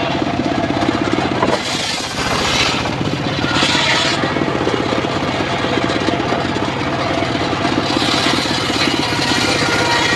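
Engine-driven mobile circular sawmill running, the engine pulsing steadily while the blade rips timber, the hissing cutting noise swelling three times.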